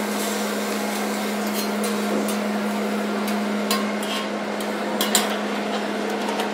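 Metal spatulas striking and scraping on a steel teppanyaki griddle in irregular sharp clicks, over food sizzling and a steady low hum.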